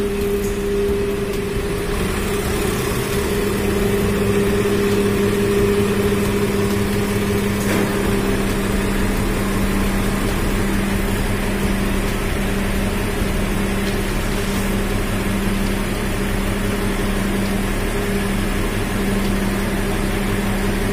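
Nissan Diesel truck's diesel engine running with its PTO-driven hydraulic pump engaged, a steady droning hum that holds one pitch throughout.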